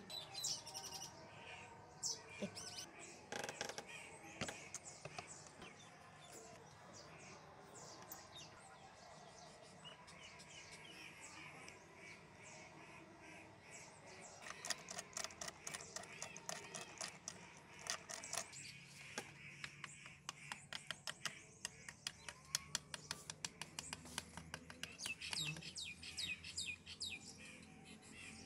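Small birds chirping and calling, with scattered light clicks and taps of metal engine parts being handled.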